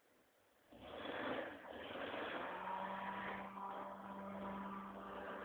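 VW T25 Syncro van's engine running as the van drives over rough off-road ground. It comes in suddenly less than a second in, then settles into a steady drone.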